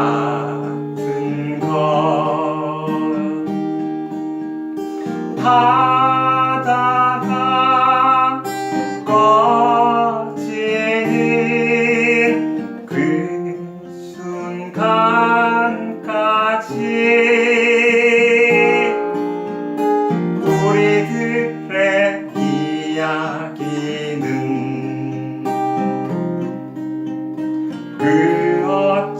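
Music: acoustic guitar strumming with a singing voice carrying the melody.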